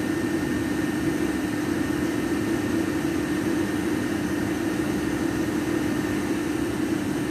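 Hamworthy Wessex Modumax Mk3 gas boiler module firing on its burner with a steady roar and a hum. It is running with no water circulating through it, which the engineer says leaves the boiler kettling and overheating.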